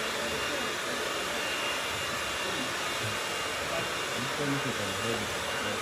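Hair dryer running steadily: an even rushing hiss with a faint high whine over it, and faint voices underneath.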